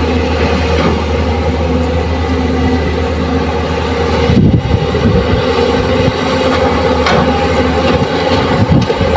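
Diesel engine of a tracked excavator running under load as it digs and swings soil, a steady low hum that turns louder and rougher about four and a half seconds in.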